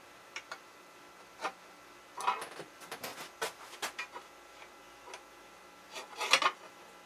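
Steel dial caliper jaw scribing layout marks on an aluminum plate: a few light ticks, then a run of short scratches and clicks a couple of seconds in, and another brief scrape near the end.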